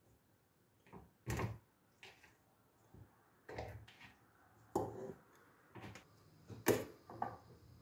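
Pieces of raw calf tail, meat and bone, being set by hand into a stainless steel pressure cooker: a run of about nine separate dull knocks and clunks against the pot, the loudest a little past a second in and near the end.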